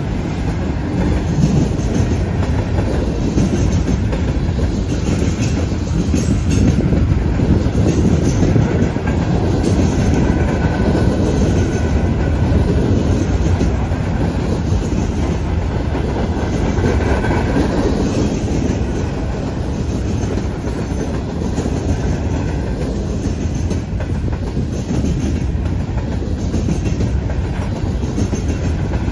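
Freight cars of a CN freight train, autoracks and then covered hoppers, rolling steadily past: a loud, continuous rumble of steel wheels on the rails.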